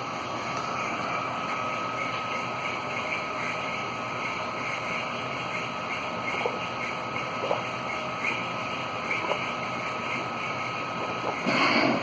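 A machine running steadily with a thin steady whine. The whine stops near the end, where a short, louder rush of noise comes.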